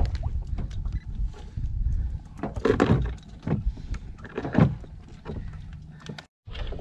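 Irregular knocks, thumps and rustles of handling aboard a small fishing boat, with the sound cutting out briefly near the end.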